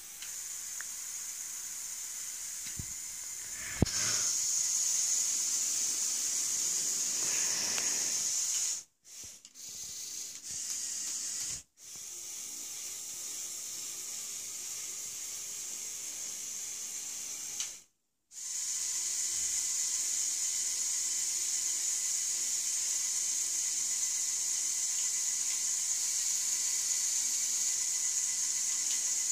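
Lego Technic 42009 Mobile Crane's electric motors and gear trains running as the boom is lowered: a steady high whirring hiss that steps up after a click about four seconds in and cuts out briefly three times.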